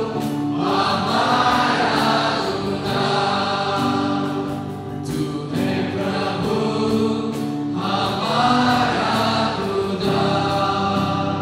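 A small group of men and women singing a Hindi Christian worship song together to acoustic guitar, in long held phrases with short breaks between them.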